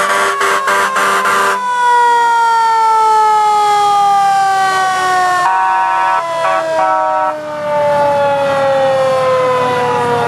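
Fire engine's mechanical siren winding down, one long slow falling wail. Over it the truck's air horn sounds in short blasts during the first second and a half, and again in a few broken blasts about halfway through.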